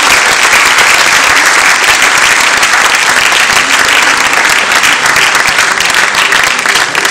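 A large seated audience applauding steadily, a dense continuous patter of many hands clapping.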